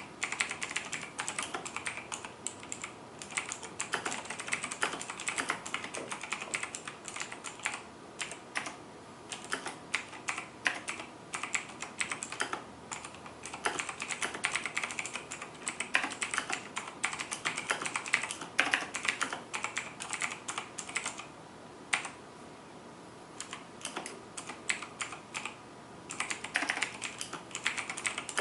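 Fast, continuous typing on a mechanical keyboard with clicky Razer Green switches: a dense run of sharp key clicks, with two short pauses about three quarters of the way through.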